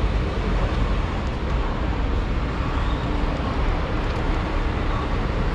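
A steady low rumble and hiss of outdoor background noise, traffic-like, with no distinct events.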